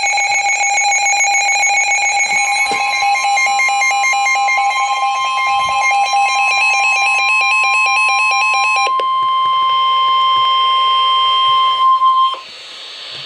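NOAA Weather Radio warning alarm tone: a steady single tone near 1 kHz (the 1050 Hz alert tone) comes in about three seconds in and cuts off near the end. Over its first part a second electronic alarm sounds, steady at first, then a rapid warble that stops about nine seconds in.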